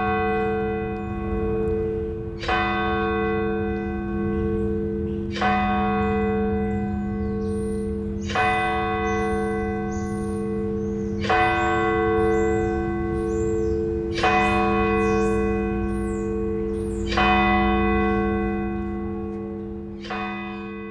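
A single large bell tolling slowly, one stroke about every three seconds, all at the same pitch, each stroke ringing on into the next.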